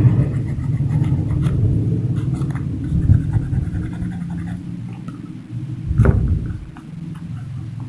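Hand-sanding a small metal gamecock spur cap against sandpaper: a continuous low, rough rubbing and scraping, with a sharp knock about six seconds in.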